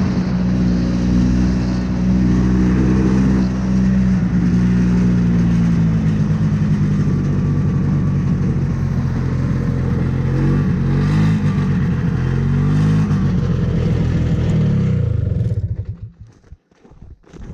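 Yamaha Bravo BR250 snowmobile's single-cylinder two-stroke engine running under way, its pitch dipping and rising a few times with the throttle. It cuts off suddenly near the end, leaving a few short knocks and crunches.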